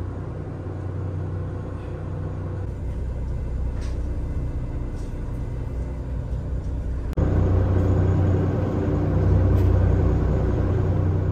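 Ferry engines droning inside the passenger cabin: a steady low hum that grows louder about seven seconds in.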